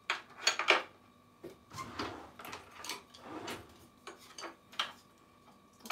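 Light clicks and knocks of tableware being set out on a tray, as a chopstick rest and chopsticks are put in place beside the plates. The loudest knocks come in the first second, with a few softer ones after.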